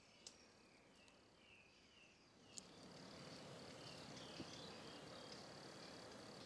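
Faint insect-like ambience. A few soft high chirps come first; then, after a click about two and a half seconds in, a steady faint hiss with a thin high tone carries on.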